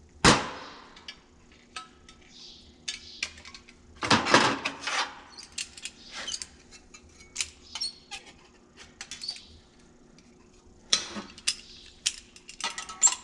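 Metal pieces and hand tools, locking pliers among them, clattering and clanking on a sheet-steel cart tray as they are handled and set down. The heaviest clatters come right at the start, about four seconds in, and near the end, with lighter clicks between.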